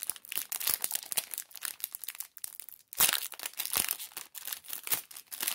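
Stack of Top Gear Turbo Challenge trading cards being handled and flicked through: the cards slide and rub against each other in quick, crackly rustles, with a louder bout about three seconds in.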